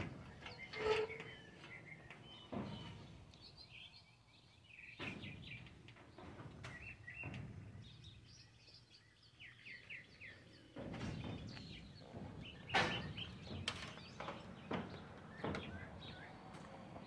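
Small birds chirping on and off, with scattered sharp knocks and clanks from hand work on a wind-turbine mount on a metal roof.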